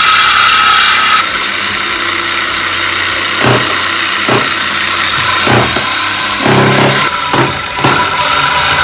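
Power tool cutting through the steel exhaust pipe of a 2012 Camaro SS, a loud, steady, hissing cut with a high whine, as the pipes are cut to make room for an X pipe.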